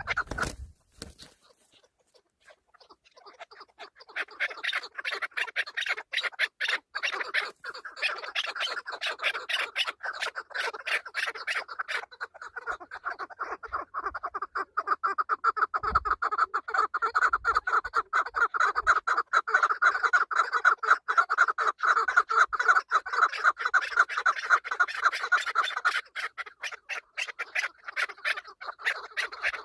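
Chukar partridge calling: a long run of rapid, repeated clucking notes. It breaks off briefly about a second in, then resumes.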